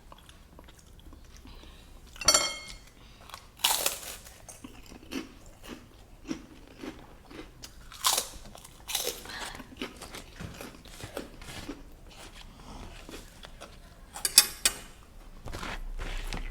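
Close-up eating sounds: crunching and chewing in irregular bursts, with a few sharp clicks and scrapes, the loudest near two seconds in, around eight to nine seconds, and near the end.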